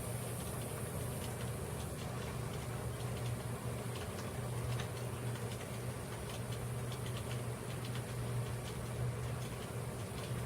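Hunter Leoni ceiling fan running at low speed: a steady low hum, with scattered light ticks of rain dripping off the roof.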